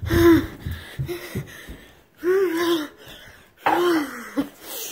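A person's wordless voice sounds: three short cries, the last falling in pitch, with breathy gasping between them.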